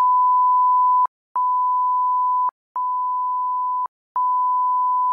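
Censor bleep: one steady pure beep tone, switched on four times for a little over a second each with short breaks between, covering what is said.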